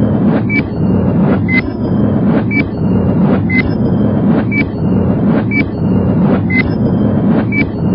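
Countdown sound effect: a short high beep with a click once a second, about eight times, over a steady low rumbling drone.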